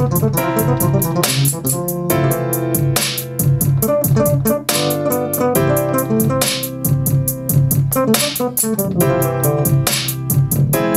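A produced hip-hop/R&B-style beat: piano-like keyboard chords and melody over a deep bass line, with rapid hi-hat ticks and a heavy drum hit about every second and three-quarters.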